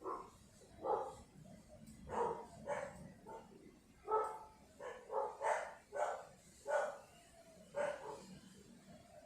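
A dog barking about a dozen times in short, separate barks at uneven intervals.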